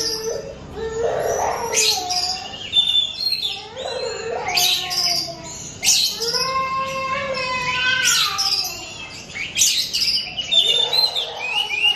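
Oriental magpie-robin (kacer) singing: a young bird still learning its song, giving varied whistled phrases that glide up and down, mixed with sharp notes and a rapid rattling trill about halfway through, in bursts a second or two apart.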